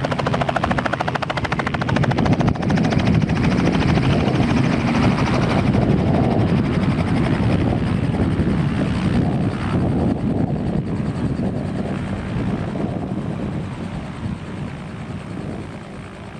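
Robinson R44 helicopter running, its rotor chopping fast and steady over a low engine drone. It grows fainter over the last few seconds.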